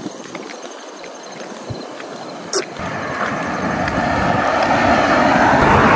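A person making mouth noises with her lips: soft air blowing, a sharp lip pop about halfway, then a lip buzz like a motorboat that grows steadily louder.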